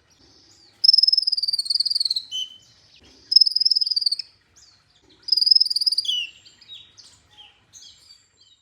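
Kolibri ninja (sunbird) song: three high, buzzy trilled phrases about a second each, separated by short pauses, then a run of short scattered chirps near the end.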